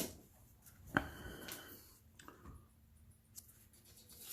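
Handling of a deck of board game cards and its plastic wrapping: a sharp click about a second in, with a few smaller clicks and soft rustling around it.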